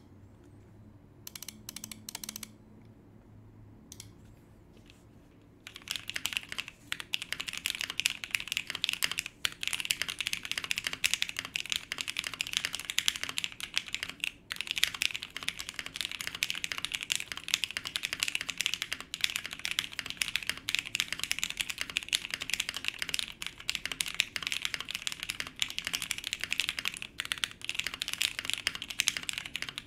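Typing on a PC Bakeneko65 mechanical keyboard with a POM plate, gummy o-ring mount and broken-in, lubed Whipped Cream linear switches under Cherry-profile keycaps: a few scattered keystrokes at first, then steady fast typing from about six seconds in. The sound is on the muted side for the POM plate.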